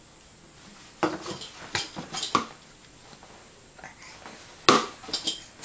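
Baby spoon clinking and scraping against a bowl of applesauce as spoonfuls are scooped: several short, sharp clinks, the loudest near the end.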